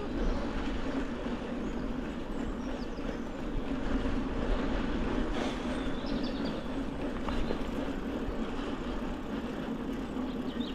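Norco Storm mountain bike riding along a trail: steady rumble of the tyres rolling, with wind noise on the microphone.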